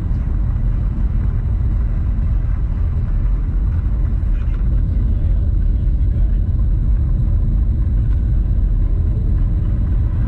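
Steady low rumble of a moving vehicle, engine and road noise, with no distinct events.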